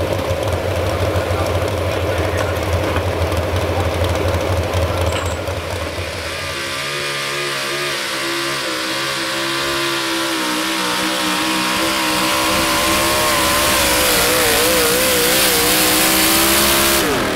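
Modified 4x4 pulling truck engines: first a deep, steady running engine; then, about six seconds in, another modified 4x4 truck pulling the weight sled at full throttle, its engine holding a high steady pitch that grows louder and wavers briefly near the end.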